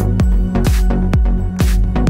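Electronic dance music with a steady beat: a deep kick drum about twice a second under a held bass line, with crisp cymbal hits between.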